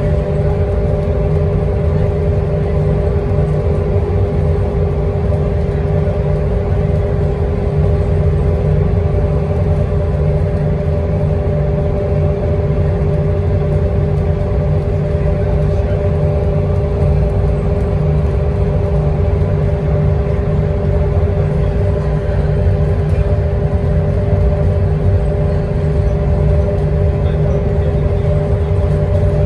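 Transit bus cruising at freeway speed, heard from inside the passenger cabin: a steady low rumble of engine and road noise with an even mid-pitched hum over it.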